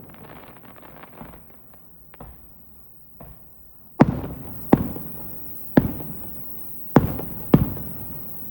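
Aerial firework shells bursting: faint crackling and a few small pops, then five loud booms in the second half, each trailing off in a rumble.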